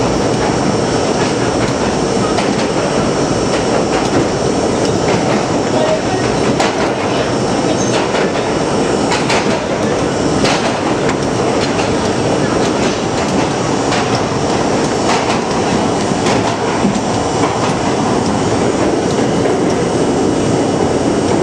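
New York City subway train running through a tunnel, heard from inside the car: a loud, steady rumble of wheels on rail with scattered sharp clicks as the wheels pass over rail joints.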